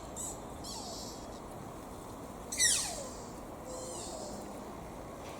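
Young deer (fawn) giving high, squeaky calls, each falling steeply in pitch, like a child's squeaky shoe. The loudest comes about two and a half seconds in and sweeps from very high to low in about half a second, with fainter squeaks before and after it.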